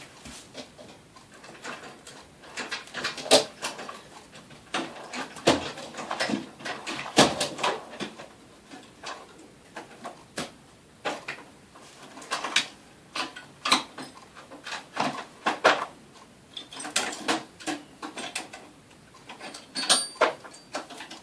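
Irregular clicks, taps and knocks from handling a padlock and small tools by hand, coming in uneven clusters with short pauses between.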